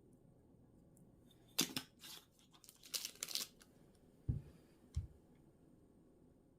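A few quick bursts of crinkling, tearing handling noise, followed by two dull thumps about a second apart.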